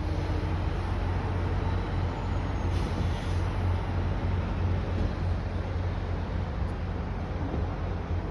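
A car being driven: a steady low rumble of road and engine noise, heard from inside the cabin.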